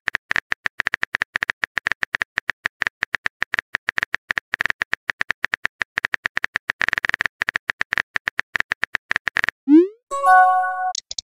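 Simulated phone-keyboard typing clicks from a texting-story app, rapid and even, as a message is typed out. Near the end comes a short rising swoosh and a chiming tone as the message is sent.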